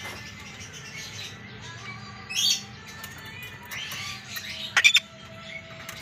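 Ducorps's cockatoo squawking: a short call about two seconds in and a louder, sharper one near five seconds.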